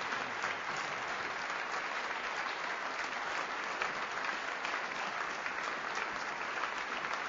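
Audience applause: a theatre audience clapping steadily after a speech, a dense patter of many hands that holds at an even level.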